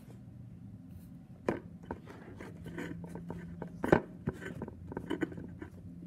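Foam squishy toys being handled and set down one by one on a plastic tray: a string of light taps and knocks, with a sharper knock about four seconds in.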